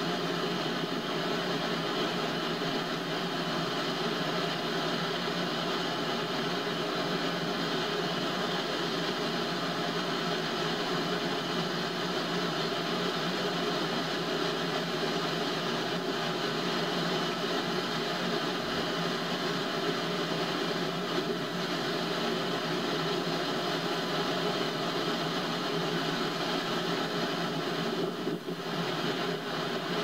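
Ocean surf as a steady, even rushing roar, with no single breaking wave standing out.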